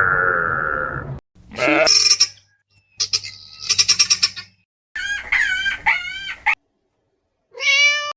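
A string of separate farm-animal calls cut one after another, with sudden silences between: a long held call, then a short call that rises and falls, a rapid series of high pulses, a wavering call, and a short call near the end.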